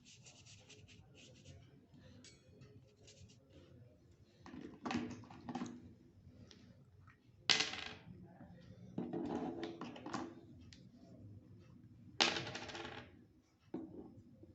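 Painting tools clinking against a hard container or palette several times, some clinks with a short ring, with soft scraping and rustling in between.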